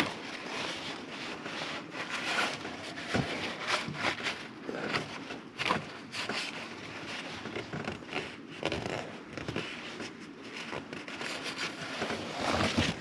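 Irregular clicks, taps and rustling of a thermostat housing and its parts being handled and fitted together by hand.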